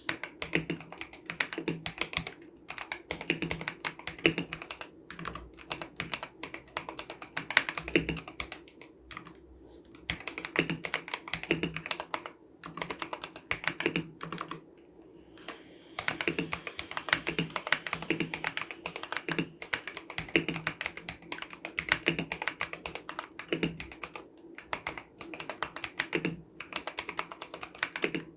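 Fast, continuous typing on a modded Daxa M71 Classic mechanical keyboard with unlubed Tecsee Purple Panda tactile switches, an acrylic case with 3 mm EVA foam, a tape-modded PCB and Cherry-profile keycaps, with a few short pauses between bursts of keystrokes.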